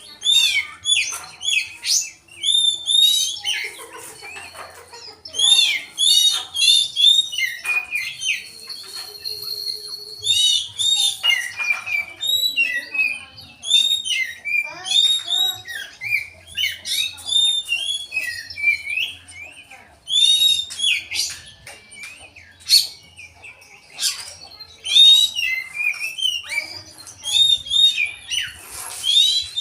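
Caged koci songbird singing nonstop in fast runs of short, arched whistled notes, its song carrying mimicked phrases of the cucak jenggot (grey-cheeked bulbul). About nine seconds in, a single high note is held steady for a second or so.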